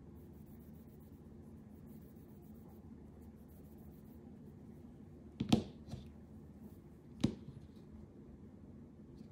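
Two sharp clicks a little under two seconds apart, with a weaker one just after the first, from handling an Apple Pencil Pro stylus. Faint steady room noise underneath.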